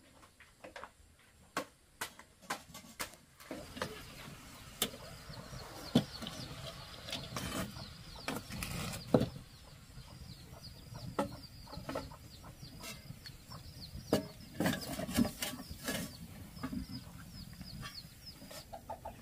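Chickens clucking, with short high peeps repeating through most of the stretch, among scattered knocks and taps.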